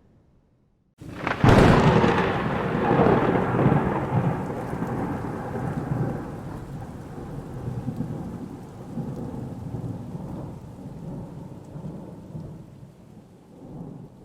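A thunderclap: a sharp crack about a second in, following a moment of silence, then a long rolling rumble that slowly fades, with rain falling throughout.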